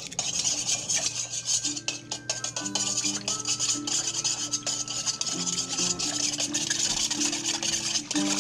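Wire whisk beating an egg and water in a stainless steel bowl: a fast, continuous scraping rattle of the wires against the metal. Background music comes in under it about two seconds in.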